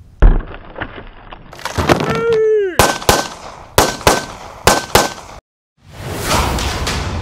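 Edited intro sound effects: a sharp gunshot-like crack just after the start, a falling whoosh about two seconds in, then three quick pairs of sharp hits with a ringing tone. A brief dead silence follows, then a noisy swell.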